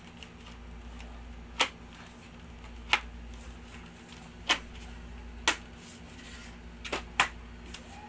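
Sharp plastic clicks and knocks from a half-face motorcycle helmet being handled, its shell and dual-visor parts being moved: six separate clicks, irregularly spaced, over a steady low hum.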